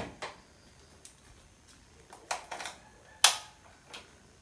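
Light clicks and knocks from a key being fitted and turned in a KTM Duke motorcycle's ignition, switching on its newly wired TFT dashboard. There is a small cluster about two and a half seconds in and a sharper click a little after three seconds. The engine is not started.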